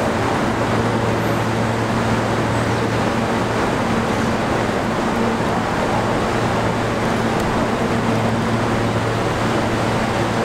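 Steady rumble and hiss of NYC Subway trains at an elevated station, with a low steady hum running under it.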